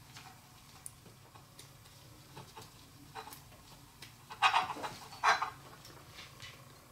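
Faint small metallic clicks of a hex key turning small screws out of a metal plate, with gloved hands handling the parts. There are two short, louder rustling scrapes about four and a half and five and a quarter seconds in.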